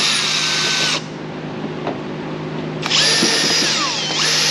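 Cordless drill-driver backing Phillips-head screws out of a ride-on cart's plastic body covers. It whines, changing pitch as the trigger is eased, stops about a second in, then runs again from about three seconds in to the end.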